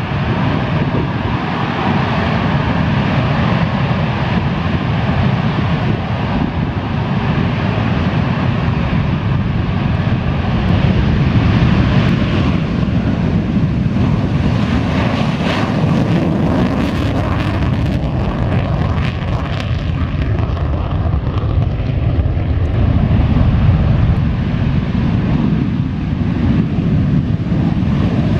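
Panavia Tornado jets' Turbo-Union RB199 turbofans running on the runway: a loud, steady rumble with a hiss above it, swelling a little twice.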